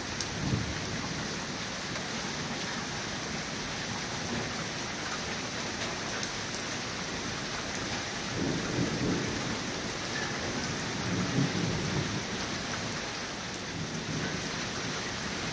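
Thunderstorm: steady rain falling, with low rumbles of thunder several times, the strongest about eight to twelve seconds in.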